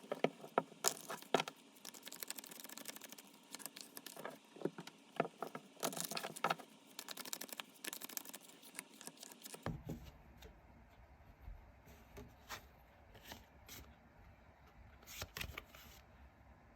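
Tarot cards being shuffled and handled: a run of quick papery clicks and rustles. About ten seconds in they grow sparser and a faint low hum joins them.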